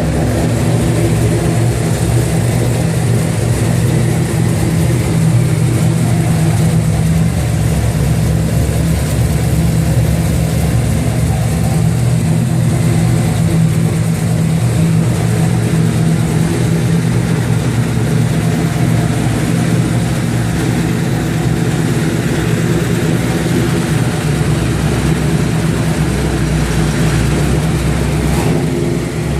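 Chevrolet Camaro's engine running steadily through a loud exhaust, a deep even rumble that holds level with little change in pitch.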